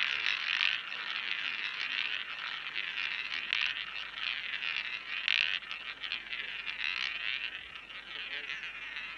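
Roulette ball rolling around the track of a spinning roulette wheel: a continuous whir that slowly gets quieter as the ball loses speed.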